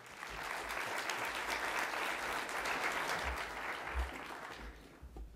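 Audience applauding, building up quickly at the start, holding steady, then fading out near the end.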